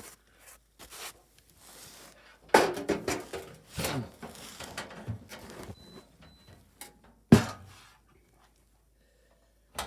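Irregular knocks and clunks of a Honeywell Vista 20P alarm panel's metal cabinet being handled against a wooden mounting board. The loudest is a single sharp knock about two-thirds of the way through.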